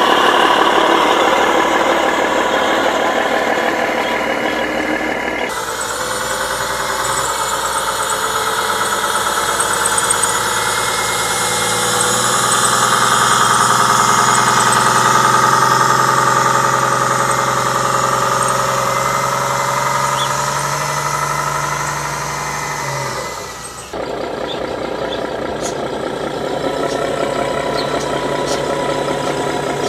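Truck engine sound from scale RC trucks running steadily, with the revs raised and held in the middle. The sound changes abruptly about five seconds in and again about twenty-four seconds in.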